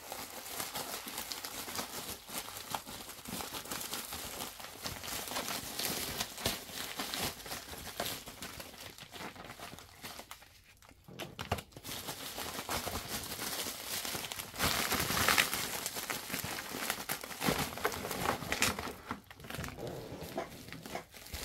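Plastic mailer bag and clear plastic packaging crinkling and rustling as it is handled and unwrapped, with a short pause about halfway through.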